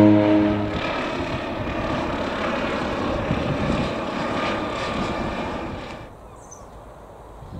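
Aircraft flying low overhead, a loud steady rushing engine drone, after a held siren-like tone breaks off just under a second in. About six seconds in it cuts to a much quieter background.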